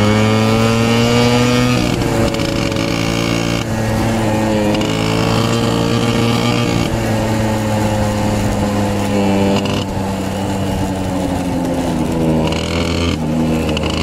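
Small motorcycle engine running under way, heard from the rider's seat, its pitch rising and falling gently with the throttle.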